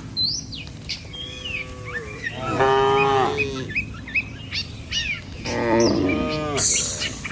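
Village cattle mooing: a faint low call about a second in, then two loud, drawn-out moos around three and six seconds in. Small birds chirp throughout.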